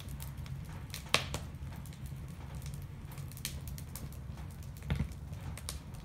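Wood fire burning in a wood stove, crackling with irregular sharp pops over a low steady rumble.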